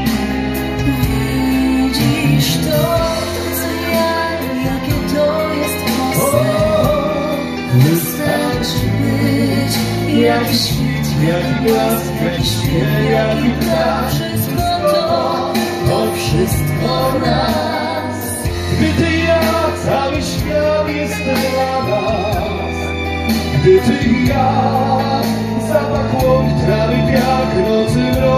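A man and a woman singing a pop ballad duet live through the stage PA over instrumental accompaniment with a steady bass line.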